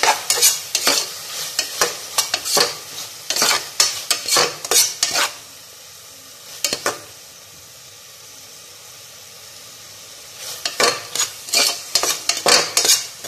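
Metal spatula scraping and knocking against the bottom of a metal pressure cooker, stirring onions and carrots frying in oil, over a steady sizzle. The stirring stops for about five seconds in the middle, leaving only the sizzle, then starts again.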